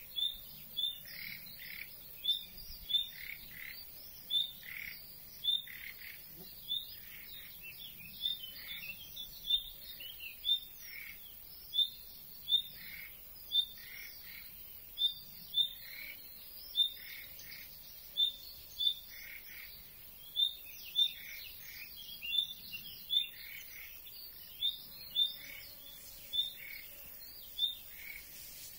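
Common nightingale giving short chirping calls, repeated irregularly about once or twice a second, each a sharp high note followed by a lower downward note. This is not its usual song but a chirping call that bird groups could not identify, and that the uploader attributes to the nightingale after a brief sighting.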